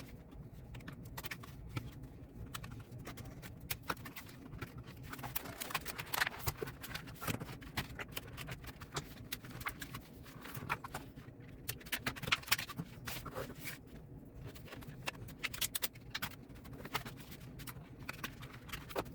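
A fixed-blade knife cutting and prying open retail packaging: irregular clicks, crackles and scraping as the package is worked open.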